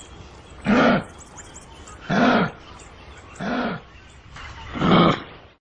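Kangaroo calling: four short calls about a second and a half apart, each rising and falling in pitch.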